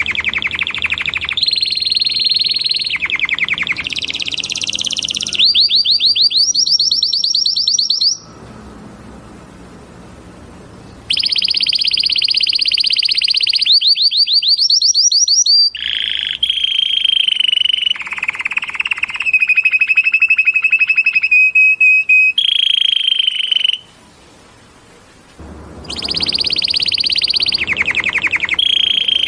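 Canary singing: fast trills and rolls of rapidly repeated notes, some phrases rising in pitch, others held on a steadier whistle. The song breaks off twice for a few seconds, about a third of the way in and again near the end.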